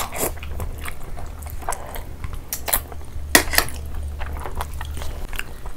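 Close-miked eating with the hands: wet chewing and smacking, and fingers mixing rice and curry on a plate, with scattered irregular clicks against the plates and one sharper click about three and a half seconds in.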